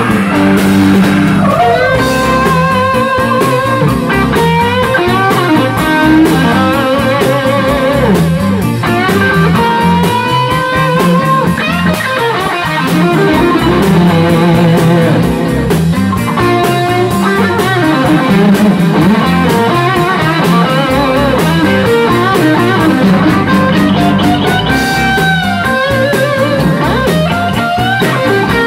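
A rock and roll band playing live and loud: a Stratocaster-style electric guitar plays a lead line of bent, wavering notes over bass guitar and drums.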